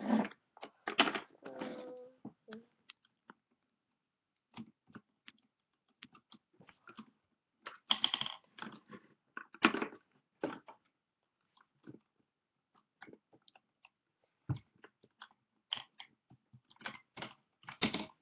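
Handling noises close to the microphone: scattered clicks, taps and rustles of small objects being picked up and moved about, in irregular clusters with short pauses between them.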